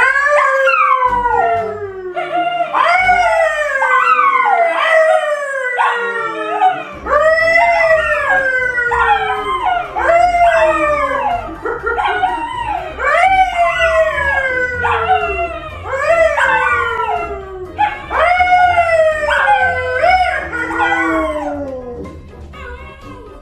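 A pet animal giving long, loud calls that fall in pitch, one after another in quick succession. Music with a low beat comes in underneath about seven seconds in.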